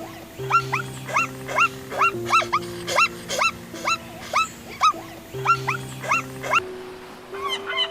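An animal's call, a short cry that rises and falls, repeated about twice a second over background music with held chords. Near the end the calls stop and a quicker run of short, overlapping calls begins.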